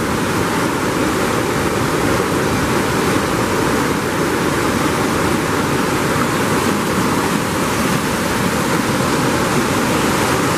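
Waterfall pouring over a wide rock ledge and the creek's white-water rapids rushing over boulders below: a loud, steady rush of water.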